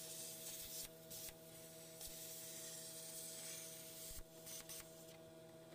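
Plasma cutter cutting through the sheet-steel fender: a faint hissing rush of arc and air, broken off briefly about a second in and again just after four seconds, over a steady hum.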